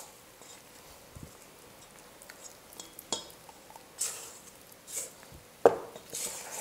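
Hand mixing shaggy flour into a wet dough in a stainless steel mixing bowl: soft squishing and rubbing with scattered small clicks and a few short rustling scrapes, then one sharp knock against the bowl near the end.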